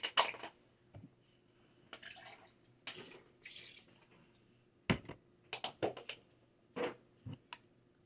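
Liquid pouring in two short spells, then a series of light clicks and knocks as a plastic blender cup and its lid are handled.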